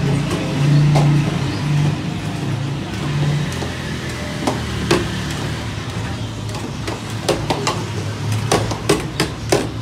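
Low hum of street traffic, then from about halfway a run of sharp clinks and knocks, growing thicker near the end, as a metal ladle strikes steel pots and a serving tray at a food stall.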